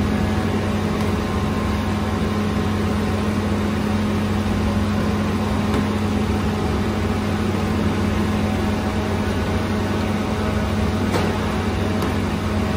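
Steady mechanical drone of a bakery's gas-fired bread oven burner and wall exhaust fan running, a constant hum with a rushing noise over it.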